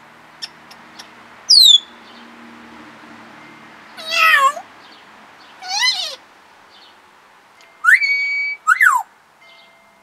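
African grey parrot whistling and calling in separate short phrases. First comes a high whistle that falls steeply in pitch. Then come two wavering calls that slide up and down, a whistle that rises and holds steady, and a quick up-and-down whistle near the end.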